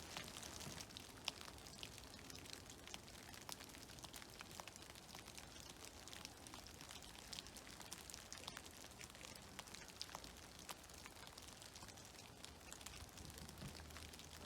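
Meltwater dripping from snow-laden trees: scattered, irregular drops pattering faintly, over the soft steady hiss of the creek.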